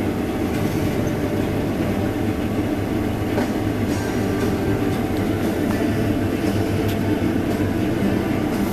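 Combine harvester running steadily under load: a loud, even mechanical drone with a few faint rattling ticks.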